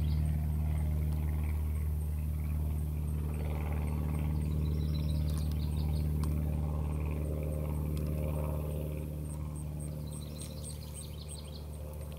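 A steady low motor hum runs throughout and slowly fades over the last few seconds. A bird trills briefly twice, once near the middle and once near the end.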